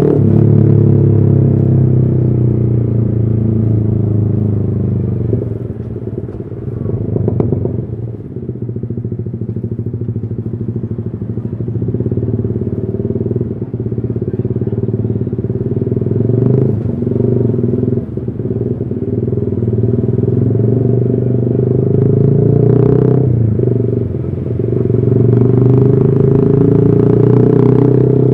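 Yamaha R15 V3's 155 cc single-cylinder engine running through a custom exhaust, a steady note that dips and changes pitch a couple of times, about a quarter of the way in and again near the end.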